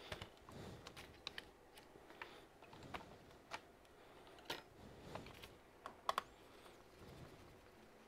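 Light clicks and taps of a laptop's bottom case and small tools being handled and set down on a silicone repair mat. About a dozen scattered clicks, the loudest a quick pair about six seconds in.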